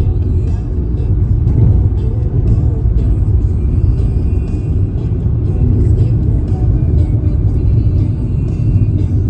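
Steady low road rumble of a moving car heard from inside the cabin, with background music playing over it.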